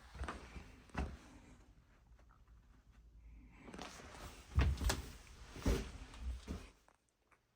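A series of knocks and clunks: two sharp knocks near the start, then a louder run of thumps about halfway through, after which the sound drops away suddenly.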